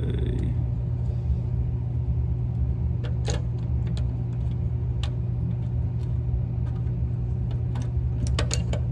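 Small clicks and taps of metal and ceramic parts as igniters and a flame rod are pushed into a tankless water heater's burner mounting plate: a few single clicks, then a quick cluster near the end. A steady low hum runs underneath throughout.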